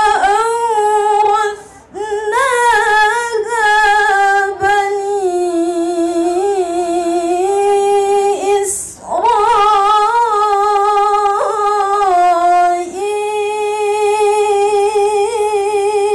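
A woman's voice reciting the Qur'an in melodic tilawah style into a microphone, with long held, finely ornamented notes. She breaks off briefly to take a breath about two seconds in and again about nine seconds in.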